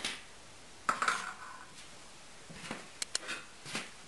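A few light clicks and knocks of a small hard piece tapping against the drywall as it is fed through a hole in the wall. One knock comes about a second in with a brief ring, and a quick cluster of clicks comes near the end.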